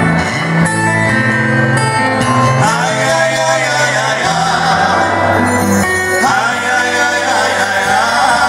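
Men singing into microphones over loud backing music, amplified through PA speakers; the voice slides up and down in pitch over steady bass notes.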